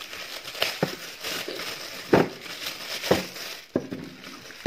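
Plastic packaging bags crinkling and rustling as small parts are unwrapped by hand, with several sharp knocks of hard plastic pieces being handled and set down.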